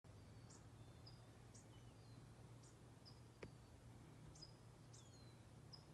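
Near silence with faint, high bird chirps about once a second, some gliding down, over a low steady hum. There is one soft click about halfway through.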